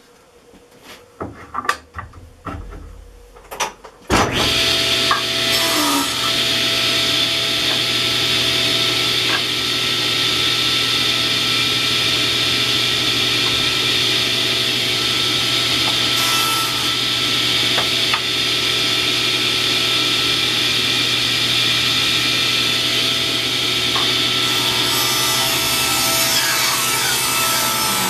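A few knocks of wood being handled on a table saw, then the table saw switched on about four seconds in, running steadily with a low motor hum while a long wooden board is ripped along the fence.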